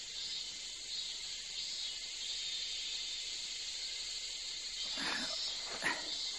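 Cicadas chirring in a steady, shrill drone that swells and fades about once a second. About five seconds in, a short breathy sound, then a light click just before the end.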